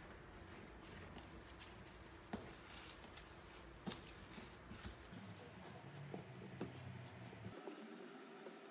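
Faint rubbing of palms rolling tapioca dough into a thin strip on a laminate countertop, with a few light taps of hands on the counter.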